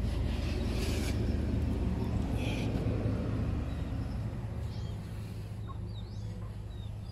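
A low, steady rumble that slowly fades away, with a few faint bird chirps from about five seconds in.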